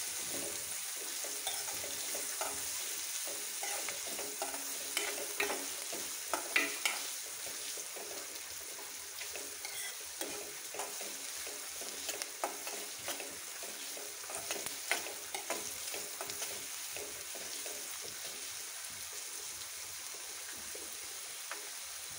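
Chopped onions frying in hot oil in a kadai, a steady sizzle, with a steel spoon scraping and clicking against the pan as they are stirred. The stirring strokes thin out toward the end, leaving mostly the sizzle.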